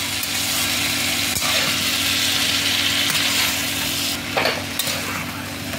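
Sliced green capsicum, onion and tomato sizzling in hot oil in a kadai, with a steady hiss as they are stir-fried. A steel spatula scrapes and knocks against the pan a few times about four seconds in.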